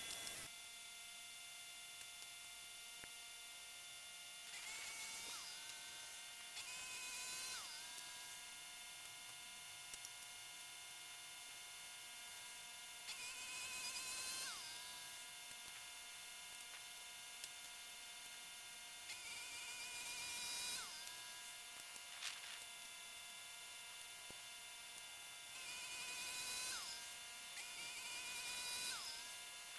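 Norwood LumberPro HD36 portable bandsaw mill running with a steady buzzing hum, its pitch stepping up and down. Several times a hiss of cutting swells for a few seconds as the blade saws through the eucalypt flitch.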